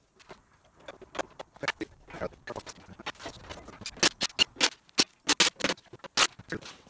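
Irregular clicks, taps and light knocks of hands and a screwdriver working on the sheet-steel housing of a sand muller, fitting a switch panel and connecting the motor wiring. The taps are sparse at first and come louder and closer together from about four seconds in.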